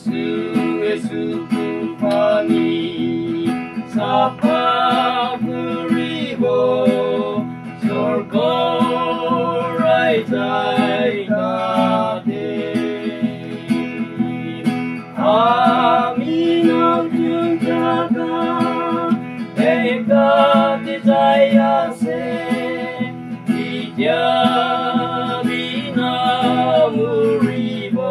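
Voices singing a Christian worship song in phrases of a few seconds, with acoustic guitar accompaniment underneath.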